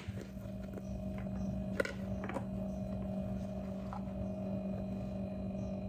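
Steady low hum with a few faint knocks about two seconds in.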